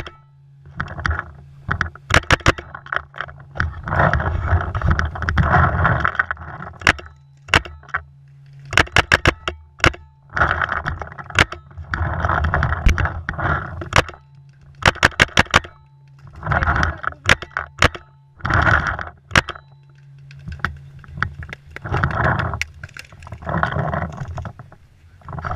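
Paintball marker firing in quick strings of several shots each, over and over. Between the strings come the rattle and scuffle of the player moving with the gun.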